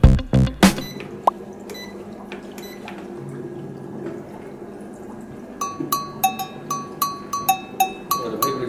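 Electric foot spa bath running, a low motor hum with water sloshing, after the last beat of music at the start. From about halfway, a quick repeating two-note ringing tap like a cowbell comes in.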